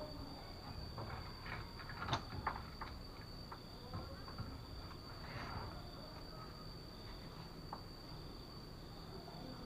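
Scattered light knocks and clicks of a heavy wooden door being fitted onto its hinges, most of them in the first three seconds, over a steady high-pitched tone.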